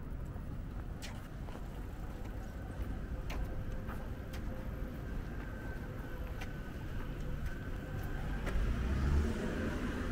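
City street traffic: the steady rumble of cars running past, with one vehicle passing close and louder near the end. A few scattered sharp ticks sound over it.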